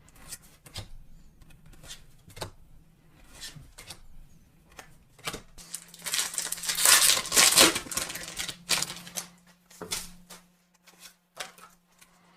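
Foil Pokémon booster pack being torn open and crinkled, the loudest stretch of about two seconds coming around the middle, with scattered small clicks and rustles of cards being handled before and after.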